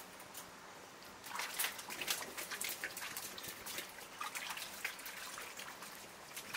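Water splashing and dripping in a bowl as hands handle conger eels in it, an irregular run of splashes starting about a second in and thinning out near the end.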